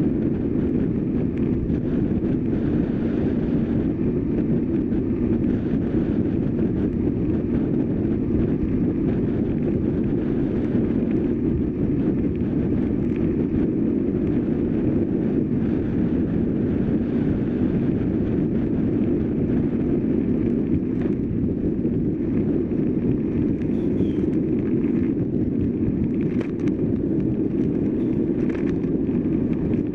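Steady wind rush on the microphone of a camera mounted on a road bike ridden at speed, with a few faint clicks near the end.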